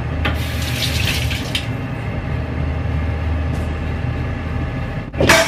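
Kitchen sink work over a steady low hum: a burst of noise lasting about a second starts about half a second in, and a sharp knock comes near the end.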